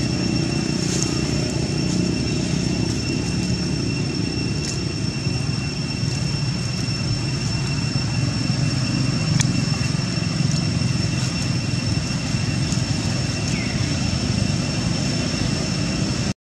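Steady low rumbling noise with a thin, constant high-pitched whine held over it, and a few faint clicks.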